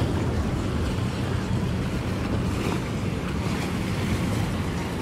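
Steady wind buffeting the microphone over shallow water, a continuous low rumble with a hiss above it.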